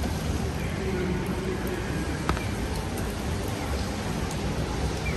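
Busy city street ambience: a steady low traffic rumble with voices of passers-by, and a single sharp click about two seconds in.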